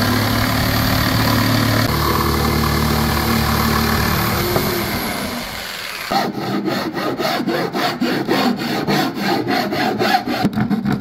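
Corded electric jigsaw cutting through a wooden plank, its motor running steadily, then slowing and stopping about five to six seconds in. A hand file then scrapes back and forth along the cut edge, about three strokes a second.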